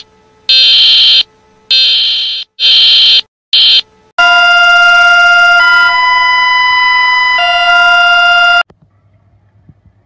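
Emergency alert alarm tones. First comes a run of about five loud, shrill electronic beeps of uneven length, the Czech Republic's alert. About four seconds in, a long buzzy electronic tone takes over: Bulgaria's alert, stepping up in pitch partway through, dropping back, then cutting off suddenly.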